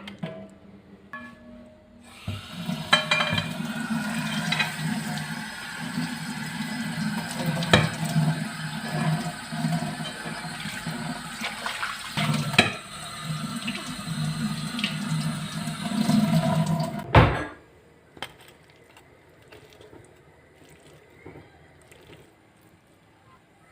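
Water running from a tap into a sink, with scattered clinks and knocks. It starts about two seconds in and is cut off abruptly with a knock about seventeen seconds in.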